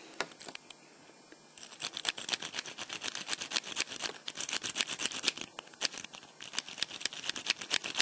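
Saw rake scraping in and out of a 5-pin lock cylinder under light tension, the pins clicking in a fast, uneven run that starts about a second and a half in, with a brief pause about two-thirds through. The lock has not yet opened.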